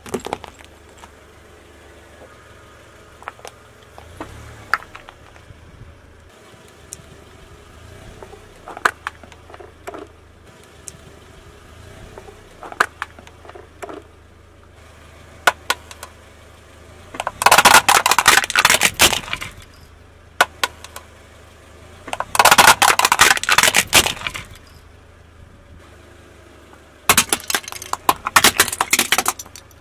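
A car tire slowly rolling over small objects and crushing them: scattered sharp cracks and snaps, then three long, loud spells of crunching and crackling plastic in the second half. A faint low engine hum runs underneath.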